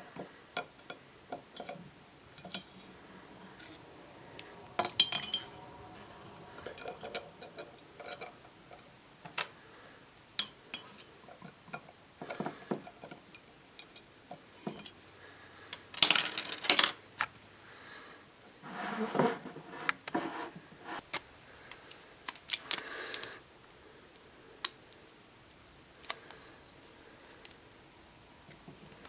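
Plastic Rubik's Cube pieces clicking and clattering against a glass jar as the cube is put together inside it: scattered small clicks, with louder runs of rattling about halfway through and twice more soon after.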